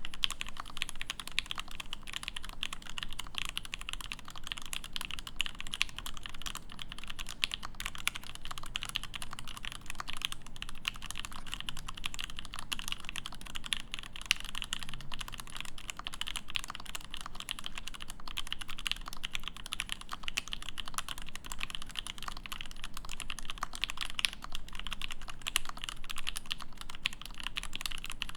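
Fast, continuous typing on a Kibodo Studio Cyberpunk mechanical keyboard with an acrylic plate, factory-lubed Mekanisk Ultramarine switches and GMK Taro ABS keycaps: a steady, dense stream of key clacks.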